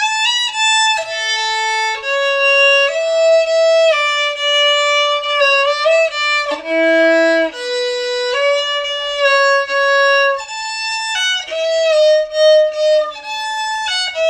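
Background music: a violin playing a melody of held notes, some sliding into the next.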